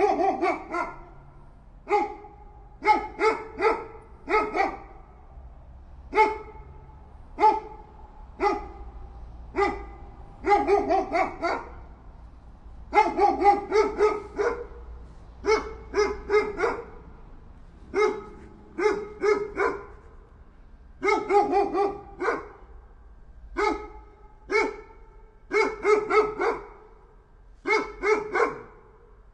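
A dog barking over and over, sometimes a single bark and sometimes a quick run of two to four barks, with short pauses between.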